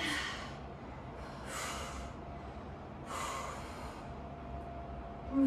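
A woman breathing hard from exertion during a strength workout: three forceful exhales about a second and a half apart.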